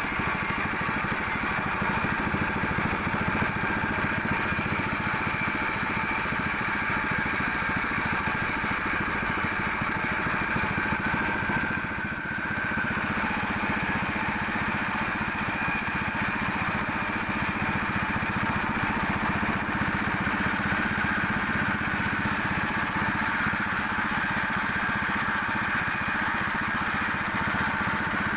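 Sawmill machinery running steadily: a continuous engine-like hum with a high whine above it, dipping briefly about twelve seconds in.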